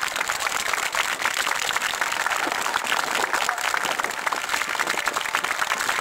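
Crowd applauding, a dense steady patter of many hands clapping.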